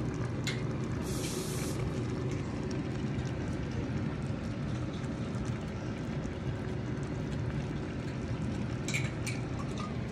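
Chicken and broccoli in oyster sauce simmering in a skillet: a steady bubbling hiss with scattered small pops, and a couple of sharper ticks near the end.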